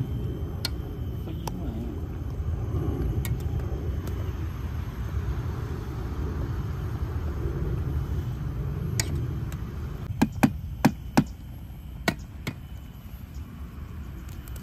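Noodles being stirred in a thin aluminium pot on a portable butane stove, over a steady low rumble. About ten seconds in comes a quick run of six or so sharp metal taps as the utensil knocks against the pot.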